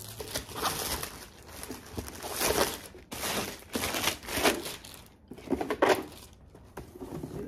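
Plastic mailer bag crinkling and rustling in irregular bursts as it is handled and a box is pulled out of it.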